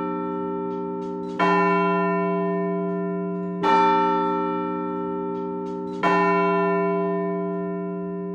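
A church bell tolling in the show's soundtrack: three strikes about two and a half seconds apart, each left ringing and fading away.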